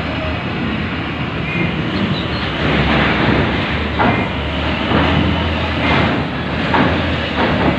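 Heavy cargo trucks driving up a ro-ro ferry's steel bow ramp: a steady low diesel rumble, with sharp metal clanks about once a second in the second half as wheels cross the ramp.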